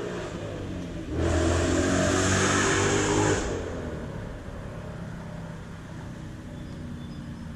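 A car driving past, loud for about two seconds starting a second in, then fading away.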